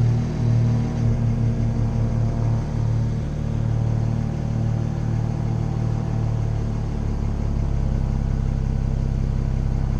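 BMW N54 twin-turbo 3.0-litre straight-six idling on a cold start, heard through catless downpipes with the secondary cat deleted and stock mufflers: a steady exhaust drone. About seven seconds in the idle becomes smoother and steadier.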